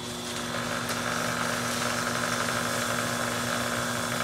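Skutt Prodigy electric potter's wheel running with a steady motor hum while hands press into the spinning wet porcelain. A louder rushing sound comes in about half a second in and holds, over a steady hiss of heavy rain on the shed roof.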